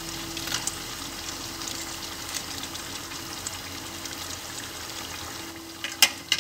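Steady low hiss and hum of the pot cooking on the stove, then two sharp metallic clicks about six seconds in as metal pot tongs grip the rim of the aluminium pot.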